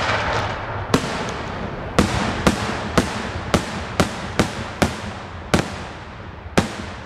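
Daylight fireworks shells bursting overhead in a run of about ten sharp, echoing bangs, roughly two a second, with a one-second gap near the end.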